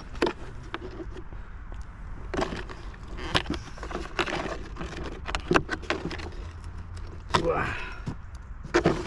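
Handling noise of an Arrma Kraton 8S EXB RC truck being opened up: scattered clicks, knocks and light rattles of body clips and plastic body parts as the body comes off.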